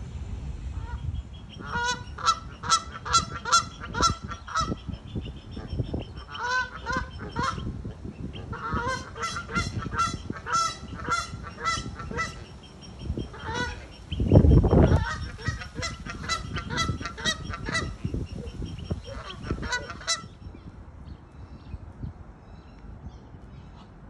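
Geese honking in quick runs of calls, in several bouts with short pauses, falling quiet near the end. About halfway through there is a brief, loud, low rumble.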